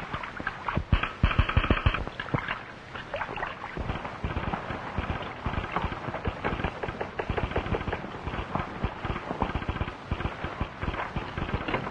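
Horses' hooves beating on hard ground: a dense, rapid clatter of hoofbeats from ridden horses.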